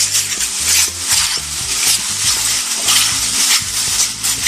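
Thin plastic bag rustling and crinkling, with many small crackles, as it is folded and twisted around a wrapped parcel.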